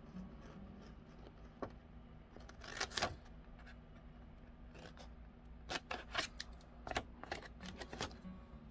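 Small craft scissors snipping through a sheet of paper: a couple of sharp snips about three seconds in, then a quicker run of snips from about six to eight seconds.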